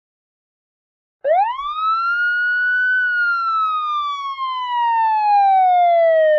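A police siren sounds one long wail about a second in: the pitch climbs quickly, then falls slowly, and cuts off abruptly near the end.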